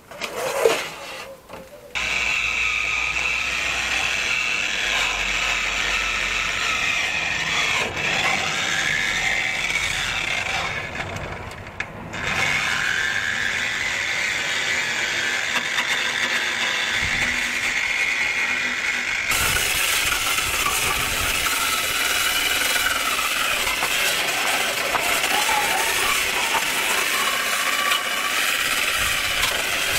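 Small corded angle grinder with an abrasive disc running against rusty steel on a car's underbody, grinding off surface rust; it starts about two seconds in and runs steadily, easing off briefly, then sounds harsher and hissier for the second half.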